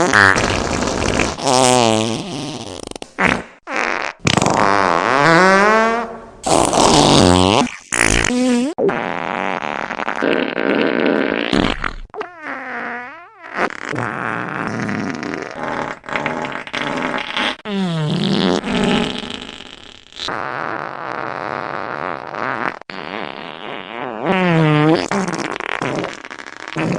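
A rapid string of recorded fart sound effects from the iFart app, one after another. Some are long and buzzy with a pitch that wobbles up and down; others are airy, hissing rasps.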